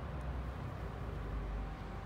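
Steady low outdoor background rumble with an even hiss, no distinct event standing out.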